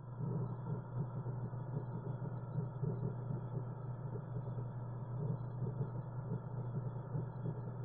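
Steady, muffled underwater churn and rumble of an aquarium's rising air-bubble stream and filter water flow, heard from inside the tank.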